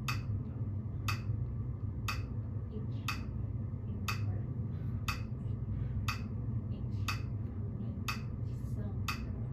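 Metronome clicking steadily about once a second, around 60 beats a minute, with fainter taps falling between some of the clicks and a steady low hum beneath.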